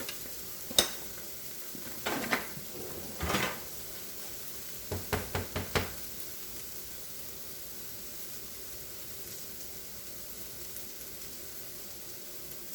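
A spoon knocking and scraping against a pan while scooping out taco filling. There is a sharp clack about a second in, a couple of knocks over the next few seconds, and a quick run of five or six taps around five to six seconds in, over a faint steady sizzle.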